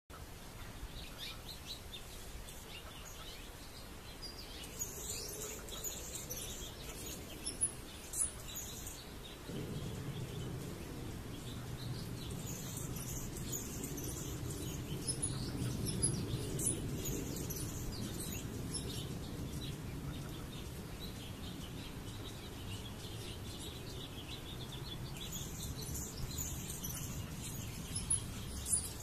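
Birds chirping in short, high calls, in three spells, over a steady low rumble that grows louder about a third of the way through.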